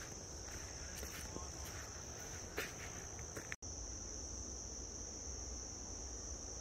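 Steady high-pitched drone of an insect chorus in the bush. Footsteps crunch in leaf litter during the first half, then the sound breaks off for an instant at a cut about halfway through, after which only the insect drone continues over a low rumble.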